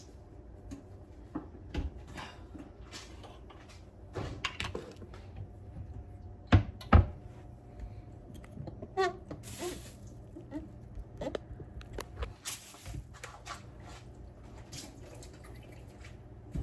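Kitchen handling noises: scattered clicks and light knocks of containers and utensils being picked up and set down on a counter, with two loud knocks about six and a half and seven seconds in, and a short rustling hiss around the middle.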